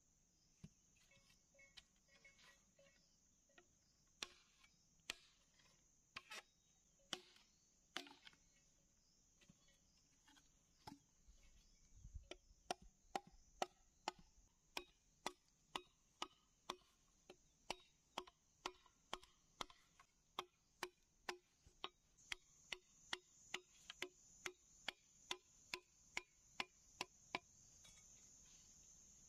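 Machete blade chopping into a green bamboo tube, carving out the trap's opening. Sharp knocks come about once a second at first, then from about twelve seconds in a steady run of about three chops a second that stops near the end.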